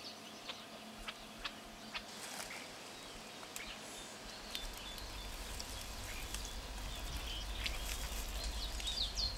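Faint outdoor nature ambience: scattered short bird chirps and a few soft clicks, with a low rumble that builds from about halfway through.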